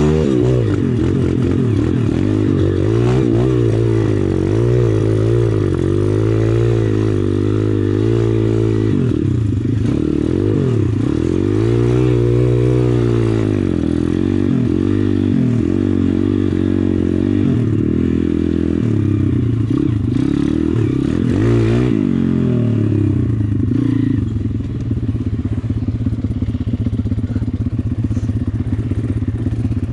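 Pit bike with a 140cc YX single-cylinder four-stroke engine, ridden off-road, its engine revving up and down again and again as the throttle opens and closes. Near the end it settles to a lower, steadier run.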